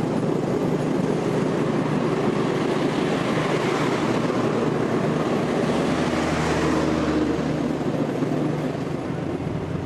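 A vehicle running steadily: a low droning hum under a wash of rolling noise that swells for a few seconds in the middle.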